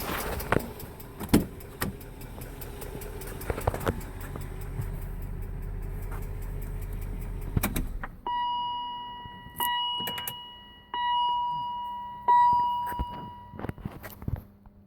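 2003 Range Rover's 4.4-litre BMW M62 V8 idling with scattered clicks, then switched off about eight seconds in. A car's warning chime then rings four times, each ding dying away, about a second and a half apart.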